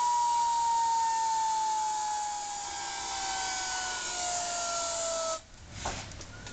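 DIY gas turbine engine running with a whine over a loud rushing hiss, the whine falling steadily in pitch as the turbine slows. The sound cuts off abruptly a little over five seconds in, leaving a few faint clicks.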